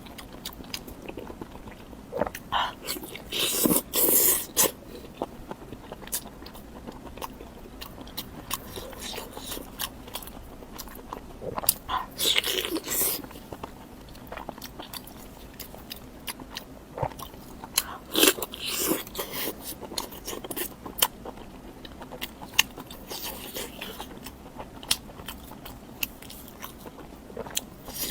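Close-miked eating: a person biting and chewing food, with crunchy bites and wet mouth clicks, and a few louder bites spaced several seconds apart.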